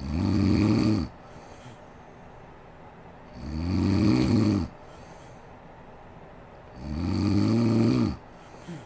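A sleeping woman snoring: three snores about a second long, coming roughly every three and a half seconds. Each snore's pitch rises and then falls.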